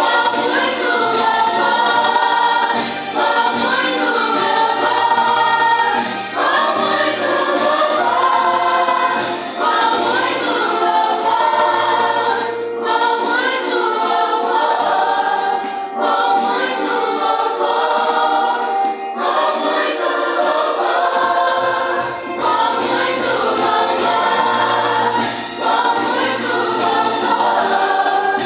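A youth choir singing a Christian worship song together, several voices in unison over a sustained low accompaniment.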